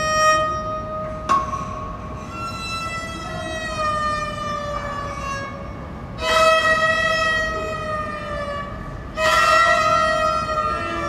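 Viola d'amore bowing long sustained notes that drift slightly down in pitch, with new notes entering every few seconds and firmer, louder ones about six and nine seconds in.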